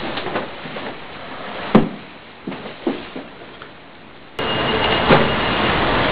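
Scuffle of two people struggling: a series of dull thuds and knocks, the loudest about two seconds in. Near the end the sound cuts abruptly to a louder steady background noise of a bar.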